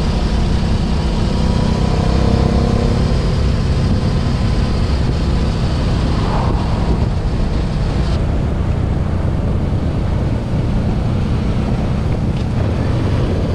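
Honda Transalp XL700V motorcycle cruising at road speed: its V-twin engine running steadily under heavy wind rumble on the microphone. The hiss thins a little partway through.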